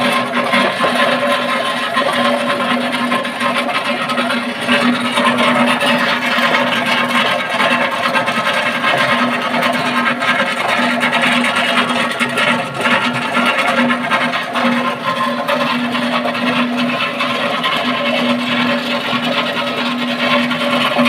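Electric vegetable slicing and dicing machine running while carrots are fed through it: a steady motor hum with a low tone that comes and goes, over a dense rattling noise.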